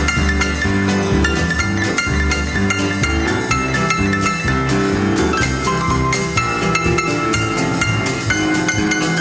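Music with a steady drum beat, bass notes and higher pitched instrument notes.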